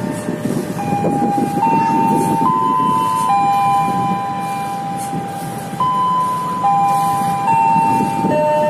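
Diesel locomotive of a passenger train running with a low rumble, under a slow tune of long held tones that step up and down in pitch.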